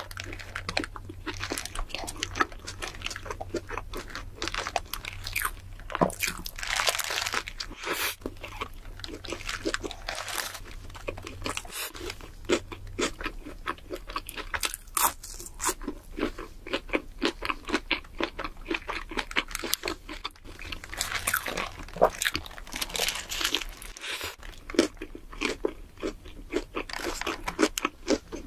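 Close-miked eating sounds of a person biting into and chewing a burger and french fries: a dense, continuous run of short crunches and clicks.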